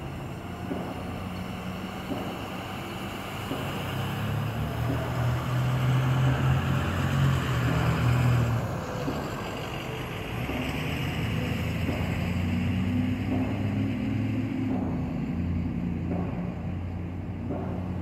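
Road traffic: vehicles, including a pickup truck, driving past on the street, engines running with tyre noise, swelling loudest about a third of the way in and again just past halfway.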